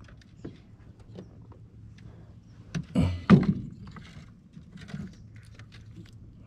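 Light knocks and clicks in a small fishing boat, with a louder knock about three seconds in and a faint steady low hum underneath.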